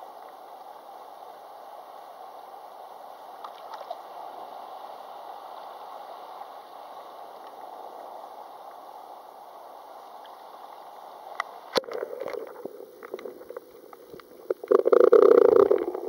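Muffled, steady sea-water noise picked up by a camera at the sea surface while snorkelling. About twelve seconds in there is a sharp click, then irregular sloshing and gurgling of water against the camera that turns loud near the end as it moves under the surface.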